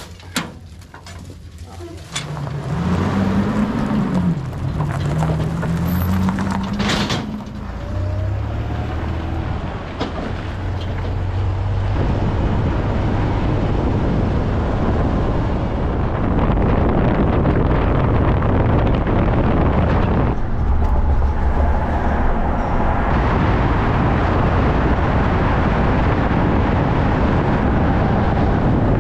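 Toyota Tundra pickup under way towing a loaded car trailer. The engine's pitch rises and falls as it pulls away over the first few seconds, with a knock about seven seconds in. Then steady, loud road and wind noise builds and holds.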